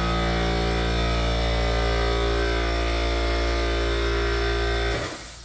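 Air compressor motor running with a steady drone, then cutting off abruptly about five seconds in with a short hiss.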